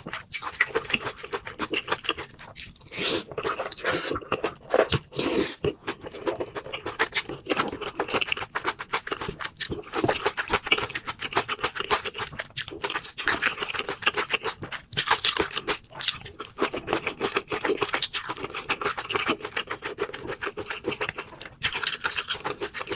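A person eating close to the microphone: continuous chewing with scraping and crunching noises.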